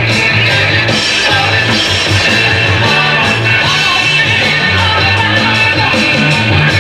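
Rock music with drums, bass and guitar playing at a steady beat.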